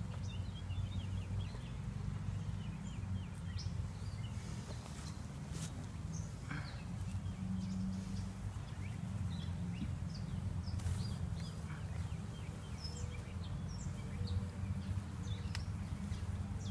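Honeybee swarm buzzing, a steady low hum from many flying bees, with small birds chirping over it.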